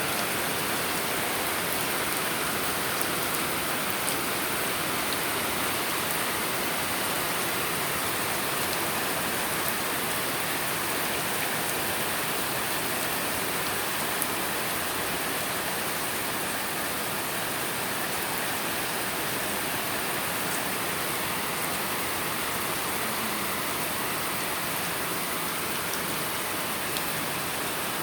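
Heavy rain pouring down steadily, with a few faint drop ticks.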